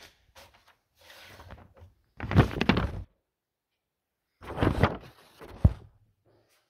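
Handling clatter: two short bursts of rattling and knocking about two seconds apart, then a single sharp knock near the end.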